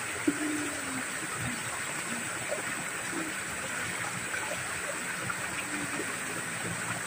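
Water spilling over a small concrete drop in an irrigation channel, a steady rushing and splashing. A single short click about a third of a second in.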